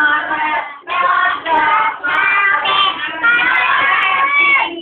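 A group of children singing together, with a short break just before a second in.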